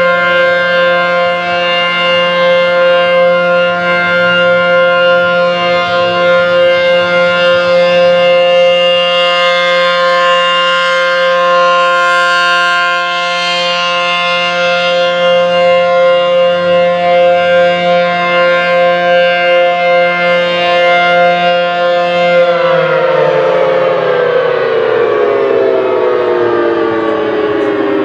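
ACA P-15 civil defense siren sounding a steady chord-like tone that pulses slightly in loudness. About 22 seconds in, it begins winding down, its pitch falling steadily.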